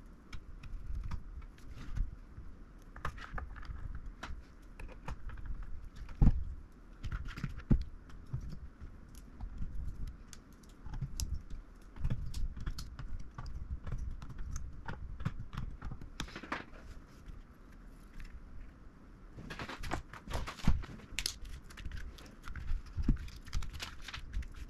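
Scattered small clicks and light rattles of hard plastic and metal parts being handled, with a dense run of quick clicks about twenty seconds in.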